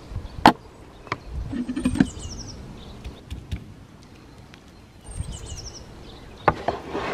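Scattered sharp knocks and clicks, with a small bird giving two quick runs of high descending chirps, one about two seconds in and one about five seconds in.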